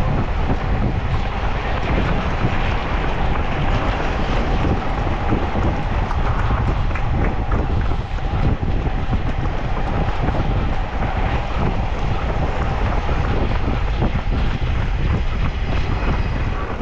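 Strong wind blowing across the microphone: a loud, steady low rumble with hiss.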